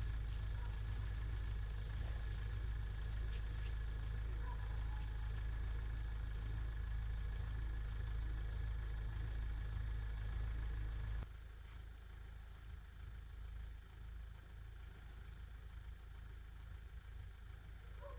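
Steady low rumble of wind on the microphone, with a faint high tone over it, cutting off abruptly about eleven seconds in and leaving only a faint, even outdoor hiss.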